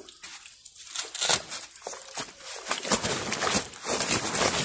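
Irregular rustling, scuffing and slapping from handling a lively fish and its sling or mat, growing busier and louder over the second half.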